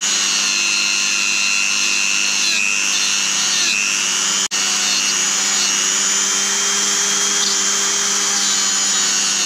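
Dremel 300 rotary tool running at high speed with a stainless steel wire brush, scrubbing the surface of a small aluminium plate to clean it before brazing. It is a steady high whine whose pitch dips a little at times, with a momentary break about halfway.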